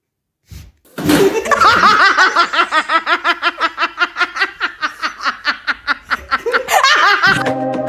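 A long, unbroken fit of rapid laughter-like vocal pulses, about five a second, each rising and falling in pitch. Music starts just before the end.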